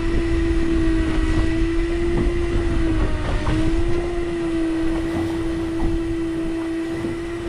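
Electric fishing reel's motor running with a steady whine as it winds in line, the pitch dipping briefly about three seconds in. Wind rumble on the microphone underneath.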